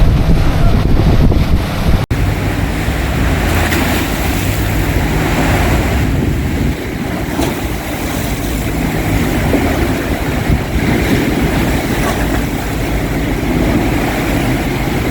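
Strong storm wind buffeting the phone's microphone over choppy waves slapping in the anchorage.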